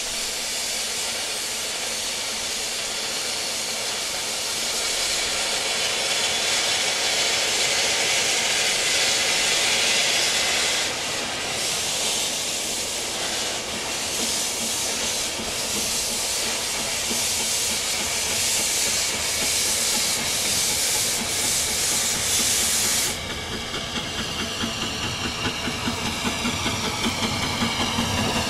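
Narrow-gauge steam tank locomotive, WDLR Hunslet 4-6-0T No. 303, hissing loudly as steam blows from its open cylinder drain cocks, with slow exhaust beats setting in about halfway as it starts to move. Near the end its exhaust beats quicken and grow louder as it gets under way with its train.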